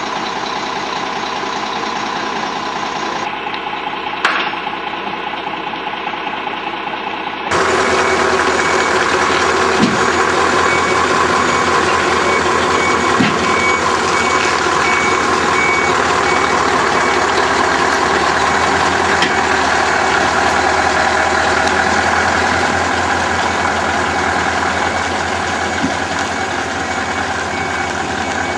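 Heavy lorry diesel engines running in a yard; about seven seconds in the sound jumps louder as a Scania 144L 530 with its V8 diesel manoeuvres. A reversing alarm beeps steadily for several seconds in the middle.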